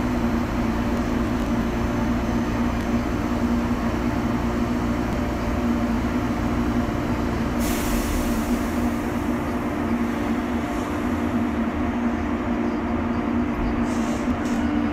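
A JR Kyushu 813 series electric train stands at the platform with its onboard equipment giving a steady hum. About eight seconds in, a sharp hiss of compressed air starts and fades over a couple of seconds.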